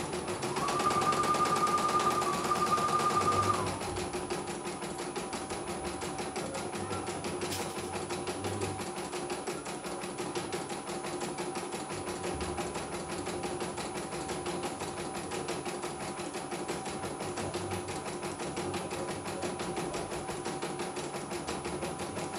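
CNY E900 portable computerized embroidery machine stitching out a design: steady, rapid needle strokes over a constant motor hum. Near the start a louder, higher steady whine sounds for about three seconds, dipping briefly in the middle.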